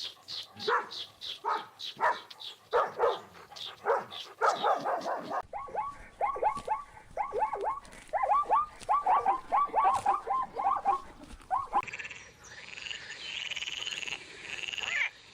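Animal calls from three spliced recordings. First comes a run of short repeated calls, then a fast series of short calls that drop in pitch, and near the end a different, higher call.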